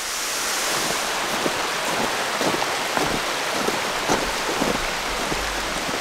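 Steady rush of the waterfall and its creek, a continuous hiss of flowing water. A low rumble of wind on the microphone comes in near the end.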